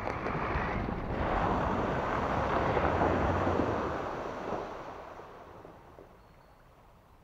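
Ford Raptor pickup truck driving through a muddy puddle, its tyres churning and splashing water over the low hum of its engine. Loudest about three seconds in, then fading as the truck pulls away.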